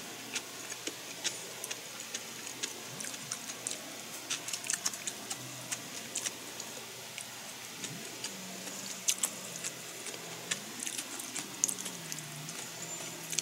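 A person chewing food with the mouth close to the microphone: scattered, irregular small clicks and wet smacks of eating.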